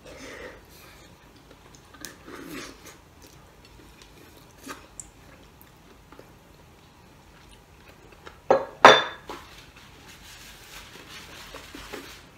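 Close-up eating sounds of a man sucking and gnawing at a boiled beef shank bone for its marrow and meat, with two sharp loud clinks of tableware a little over eight seconds in.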